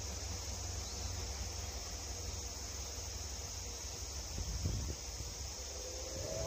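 Steady high-pitched insect chirring with a low rumble underneath; a brief thump about three-quarters of the way through, and faint pitched tones begin near the end.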